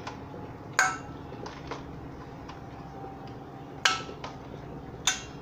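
Mussels tipped from a plastic tray into a stainless steel mixing bowl: a few sharp clinks as shells and tray strike the metal bowl, the loudest about a second in, near four seconds and about five seconds in, with lighter taps between.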